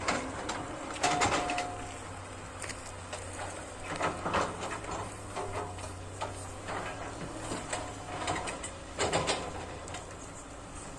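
SANY hydraulic excavator running with a steady low engine drone, with irregular metallic clanks and squeaks from its machinery as it slews and works the soil.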